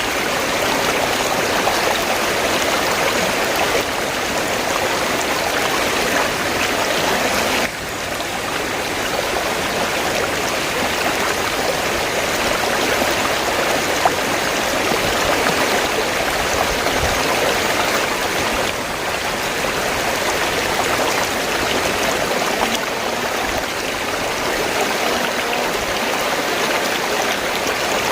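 River water flowing steadily, a continuous even rush, with a brief dip in level about eight seconds in.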